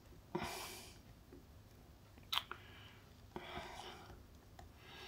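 Faint clicks and short scratchy rasps of a small screwdriver working a screw out of the metal rear mount of a Kiron 28mm f2 lens, with two sharper clicks, one near the start and one about halfway.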